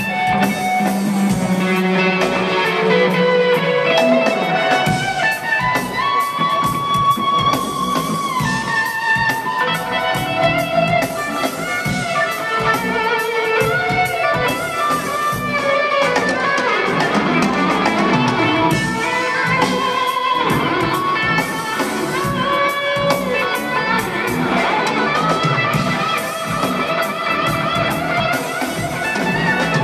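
Live electric guitar playing melodic lead lines through the PA, with quick runs of single notes and some held notes, recorded from within the audience.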